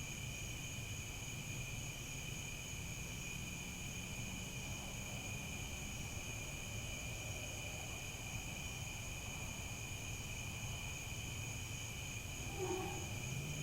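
Crickets chirping in a steady, unbroken high chorus, over a faint low rumble. A brief lower-pitched call sounds once near the end.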